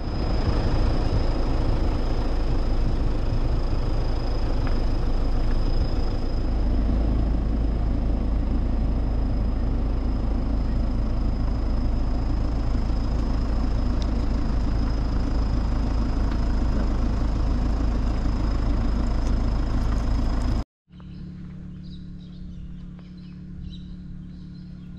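Car driving on the road, a steady engine and tyre rumble with a thin high whine, as heard inside the moving vehicle. It cuts off abruptly about 21 seconds in, giving way to a much quieter steady low hum with birds chirping.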